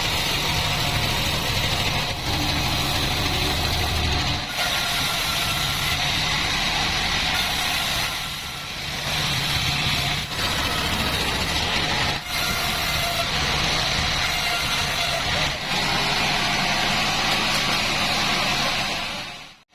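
Sawmill bandsaw running and cutting logs into beams: a steady, loud machine drone under a continuous high hiss, changing abruptly in tone a few times.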